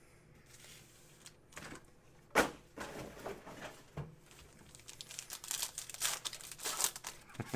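Foil trading-card pack wrapper crinkling as it is torn open and handled, with a sharp single snap about two and a half seconds in and a busier run of crinkling near the end.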